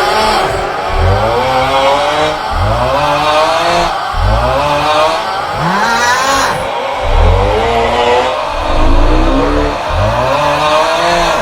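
The 'Aughhhh' snoring meme sound looped: a man's drawn-out, groaning 'aughhh' snore, repeated about every second or two with several copies overlapping. Loud throughout.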